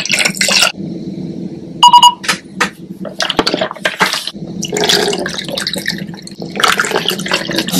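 Liquid developer being poured into a plastic film developing tank, then knocks and rattles as the tank is handled, and the liquid poured back out into a plastic bottle near the end. A short, loud electronic beep sounds about two seconds in.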